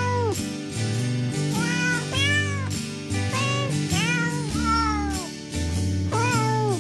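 A series of cat meows, about eight short rising-and-falling calls, over background music with steady low notes.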